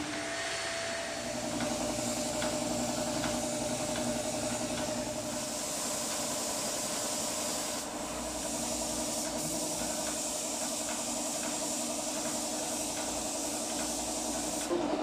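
Compressed-air spray gun hissing steadily as it sprays walnut stain onto a wooden door, with a steady hum beneath it and a brief break about eight seconds in.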